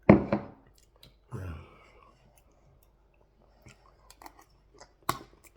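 Close-miked chewing and mouth noises of a man eating jollof rice and turkey. There are two louder, fuller bursts in the first second and a half, then a scatter of small wet clicks and crunches.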